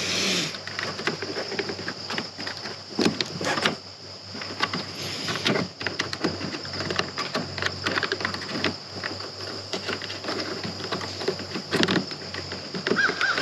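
Irregular plastic clicks, taps and scraping of a tool prying at a stuck fuse in a pickup's fuse box, working it loose.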